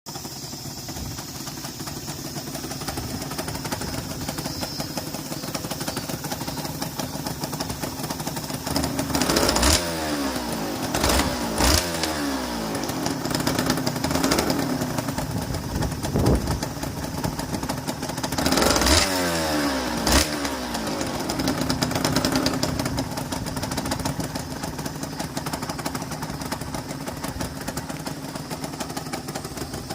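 Honda NSR250's two-stroke V-twin engine running after a long layoff. It idles steadily and is blipped several times around ten seconds in and again near twenty seconds, each time with a few sharp cracks and the revs falling back to idle.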